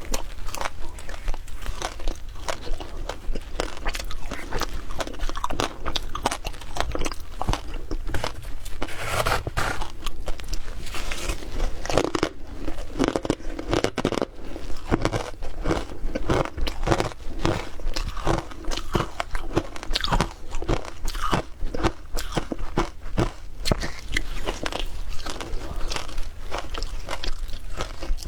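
Frozen shaved ice being bitten and chewed close to the microphone: a continuous run of sharp, crackling crunches, many a second.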